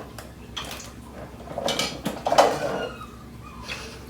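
Dishes and cutlery clattering and clinking as they are handled, in short knocks, with a louder run of clatter about two seconds in.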